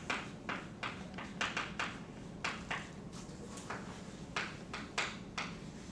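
Chalk tapping and scratching on a blackboard during writing: quick, irregular sharp taps and short scrapes, a few a second.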